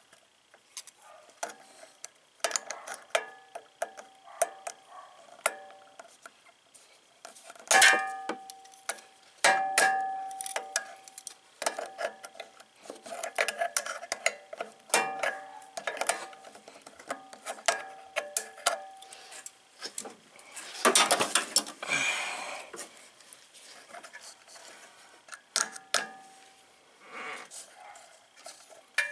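Small metal parts and pliers clicking and clinking against the electric starter's pinion gear and shaft while the gear assembly is put back on, several clinks ringing briefly, with a louder scrape a little past the middle.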